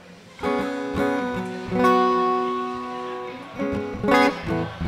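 Acoustic guitar strummed solo, with no voice: a few chord strokes start about half a second in and ring out, then a quick cluster of strokes comes near the end.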